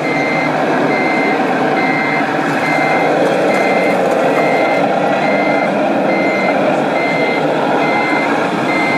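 Reversing beeper of a radio-controlled heavy-haul model set, sounding a steady high-pitched beep a little more than once a second, over a continuous rumbling noise.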